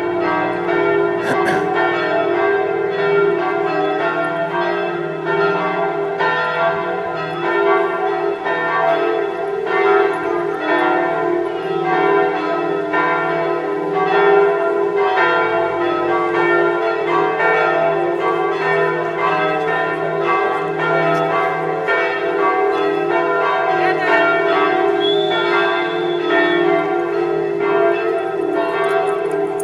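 Bells ringing continuously, many overlapping strikes whose tones ring on.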